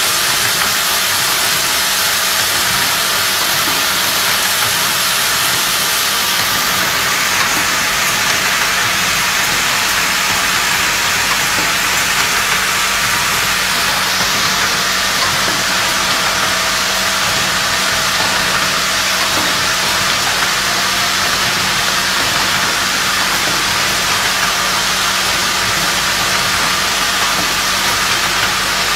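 Fully automatic ring-type spring clothespin assembling machine running with its vibratory bowl feeders: a steady, dense hissing and rattling machine noise with a low hum, even throughout.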